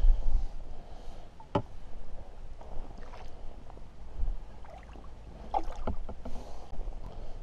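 Water sloshing and light splashing as a landing net with a trout in it is lowered into shallow water to let the fish go. Low wind rumble on the microphone at the start, and a sharp click about one and a half seconds in.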